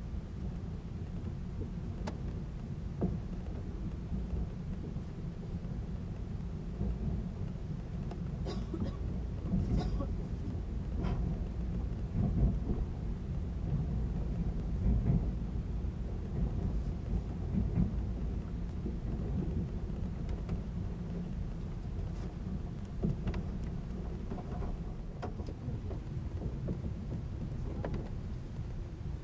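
A 583-series electric sleeper train running, heard inside the car above a motor car's bogie: a steady low rumble of wheels and running gear. Occasional sharp clicks and knocks sound through it, bunched around the middle and toward the end.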